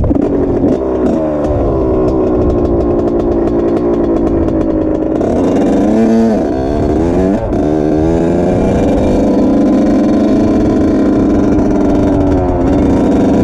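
Honda CR85's two-stroke single-cylinder engine accelerating hard through the gears. The pitch climbs for about five seconds, then drops and climbs again at two quick upshifts around the middle, holds high revs and dips once more near the end. Wind rushes over the microphone throughout.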